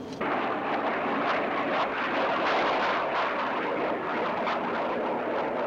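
Small business jet in flight: a steady rushing jet-engine roar that cuts in suddenly just after the start.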